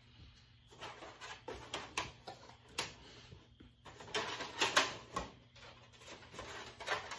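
Plastic clicks, taps and rustling from a vintage TMNT deluxe collector's figure case being opened and its black plastic figure tray handled, with a denser run of clicks about four to five seconds in.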